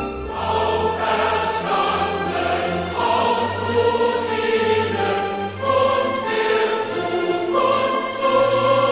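Background music: a choir singing slow held chords.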